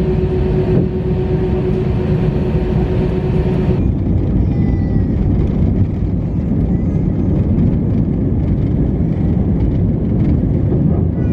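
Steady low rumble of a moving vehicle, heard from inside. About four seconds in, the sound changes abruptly and a steady hum drops out.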